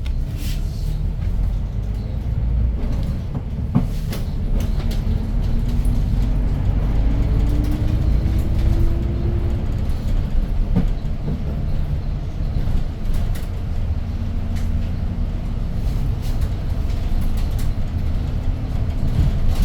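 Interior running sound of a Hyundai New Super Aerocity city bus with a CNG C6AF engine: a steady low rumble as the bus drives, the engine pitch rising for a few seconds near the middle as it pulls through a gear. A few sharp clicks or rattles sound from the cabin.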